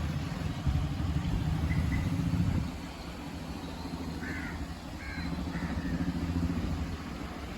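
Low rumble of a motor vehicle's engine running, louder in the first few seconds, easing off, then rising again. A bird calls three times in short notes a little past the middle.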